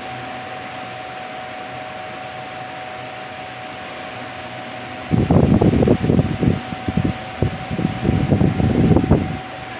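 Philco Turbo 40 cm table fan running: a steady rush of air with a thin steady tone over it. From about five seconds in, its airflow buffets the microphone in loud, irregular low gusts for about four seconds.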